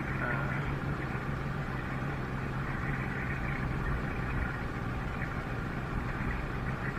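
Boat motor running steadily with a low, even hum.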